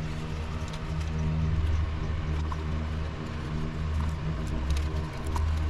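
A steady low mechanical hum with an even pitch, and a few faint clicks about two, four and five seconds in.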